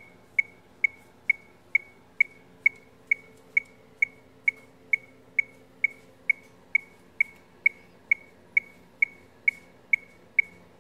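A metronome clicking at a steady marching tempo, about two and a quarter sharp, high beeps a second (roughly 140 beats a minute), keeping time for marching practice.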